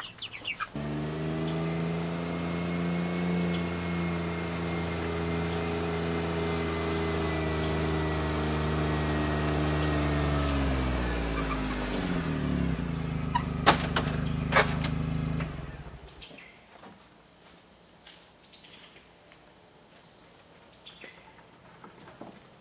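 John Deere Gator utility vehicle engine running steadily, its pitch easing down as it slows to idle, then shut off about two-thirds of the way through. There are two sharp clicks just before shut-off, and afterwards only a faint steady insect buzz remains.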